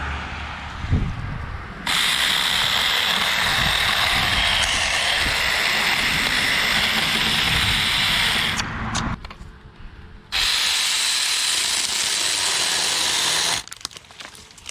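Saker mini cordless electric chainsaw cutting through a crab apple tree branch. It runs steadily for about seven seconds, stops for a moment, then runs about three seconds more and cuts off near the end.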